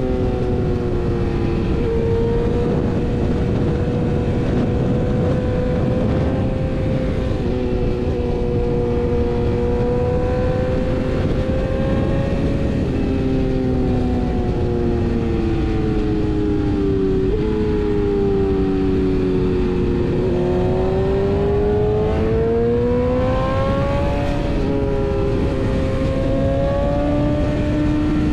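BMW S1000RR's inline-four engine running at steady revs while riding, its pitch easing up and down through the bends, dipping past the middle and climbing again later, over a constant rush of wind and road noise.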